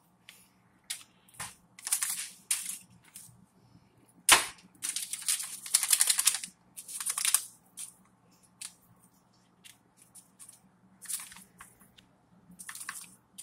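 Crinkling and crackling of aluminum foil and a foil seasoning packet being handled, in irregular short bursts, with a sharp crackle about four seconds in and a denser run of crinkling from about five to seven and a half seconds.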